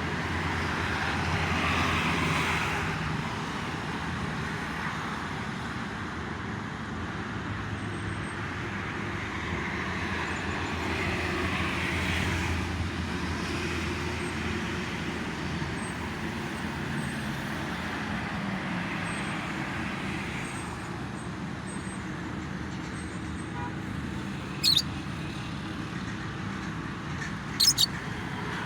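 Steady road traffic from a toll road below, a continuous rumble of cars and trucks that swells and eases slightly. Near the end a lovebird gives two short, sharp, high chirps, the second a quick double.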